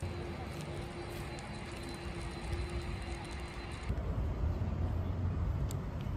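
Steady low rumble of distant jet airliner engines, with a faint steady hum over it. About four seconds in the sound changes abruptly and the higher hum drops out, leaving the low rumble.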